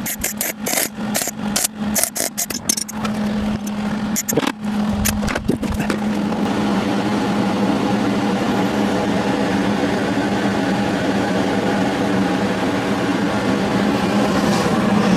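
Arc welding on a car subframe: a run of short, sharp crackling tack welds, then one continuous crackling weld for about nine seconds that stops at the end, over the welding machine's steady hum.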